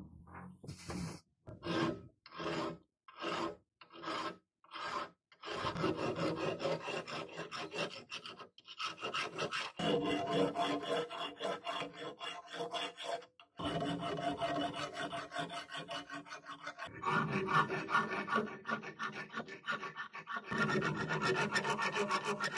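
A steel file rasping on the steel jaws of a pair of pincers held in a vise. It starts with slow, separate strokes for the first few seconds, then settles into quick back-and-forth filing with a few short pauses.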